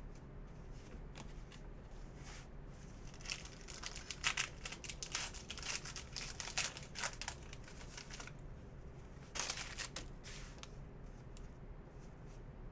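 Foil trading-card pack wrapper being torn open and crinkled: a run of quick rips and crackles a few seconds in, then a shorter burst at about ten seconds.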